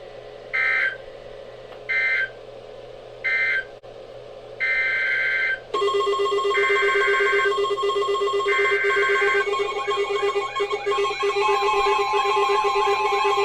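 Emergency Alert System digital data bursts, the buzzy tones that begin and end an alert. First come three short bursts about a second and a half apart, the end-of-message signal. Then come three longer bursts of about a second each, a new alert's header, with steady tones underneath from about six seconds in.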